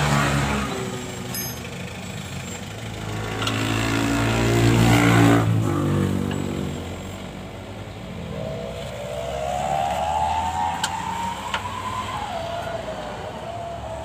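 Passing motor vehicle engines. One engine swells up and passes about four to six seconds in. Then another engine's pitch rises steadily for about four seconds and drops, with two sharp clicks just before the drop.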